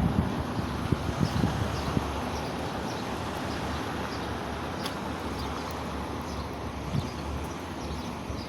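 Wind buffeting the microphone in gusts, strongest in the first couple of seconds, with faint regular footsteps ticking about twice a second as the person walks.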